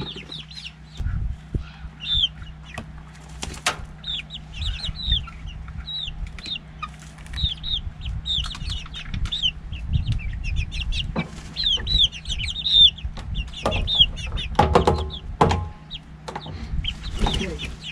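Hens calling repeatedly at close range, many short high calls a couple of times a second, with occasional knocks and low bumps from work nearby.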